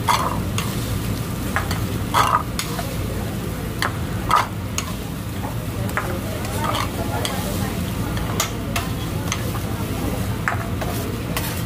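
Food frying and sizzling on a teppanyaki griddle, with scattered sharp clicks and clinks over a steady low hum.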